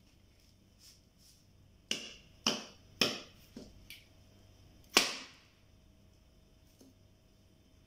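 Kitchen knife chopping into a coconut's fibrous husk. Three sharp strikes come about two to three seconds in, then two lighter taps and one last hard strike about five seconds in.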